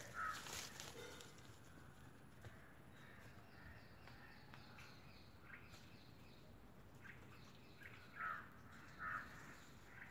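Crows cawing faintly over a quiet background: one caw at the start, then two caws about a second apart near the end.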